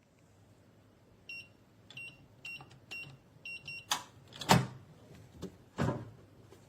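Electronic keypad of an Amazon Basics steel security safe beeping as a code is entered: about five short high beeps roughly half a second apart. Then a few sharp metallic clunks from the lock and door, the one in the middle loudest.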